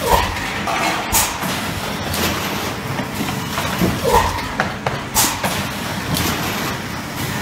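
Fully automatic PET stretch blow molding machine running: a steady mechanical din with knocks, and two short sharp bursts about four seconds apart as it cycles.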